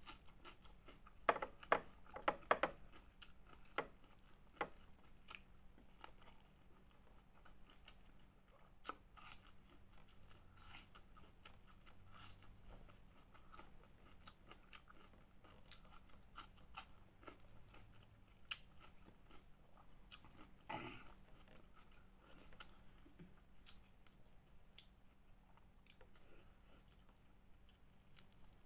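A person chewing and crunching food close to the microphone, with wet mouth clicks. The loudest crisp crunches come in a quick cluster a second or two in, then the chewing goes on softer with scattered clicks and one more louder crunch near the end.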